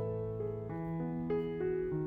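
Background piano music: a melody of notes changing every third of a second or so over held low notes.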